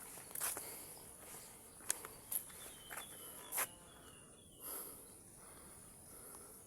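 Insects droning steadily at a high pitch, with a handful of sharp clicks and knocks scattered through, the sharpest about two and three and a half seconds in.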